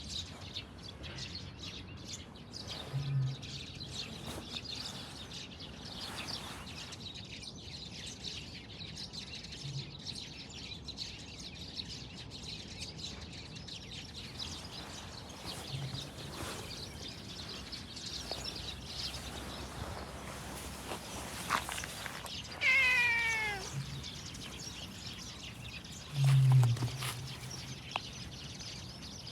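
A cat meows once, a single call falling in pitch, about three-quarters of the way through, over a steady background hiss. Two low thumps come about three seconds in and again shortly after the meow; the second thump is the loudest sound.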